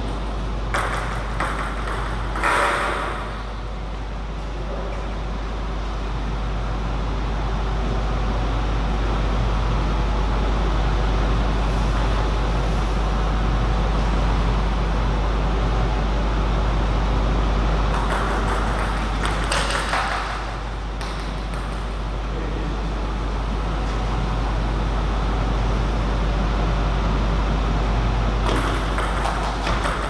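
Table tennis ball clicking off the paddles and the table in short bursts of rally: near the start, about two-thirds of the way in, and near the end. A steady low hum runs underneath.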